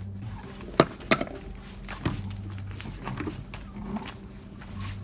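Scattered sharp knocks and clatters, with footsteps on asphalt and a low rumble that comes and goes, as a loaded fishing kayak and its gear are moved along the road.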